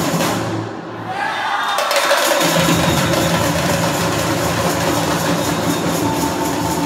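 Samba bateria drums and percussion playing together in a dense, steady rhythm. The sound thins briefly about half a second in, then the full ensemble comes back in.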